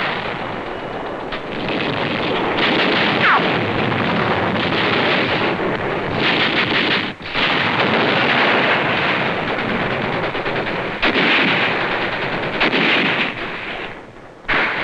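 Dense, continuous battle gunfire: rapid rifle and machine-gun shots crackling over one another, with a brief break about seven seconds in and dying down near the end.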